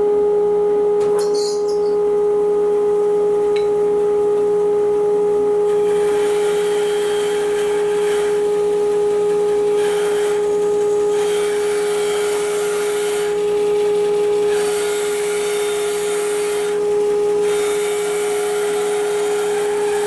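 Laguna bandsaw running with a steady hum, resawing cedar picket cut-offs into thin shingles. From about six seconds in come about five cuts, each a couple of seconds of blade rasping through the wood, with short pauses between them.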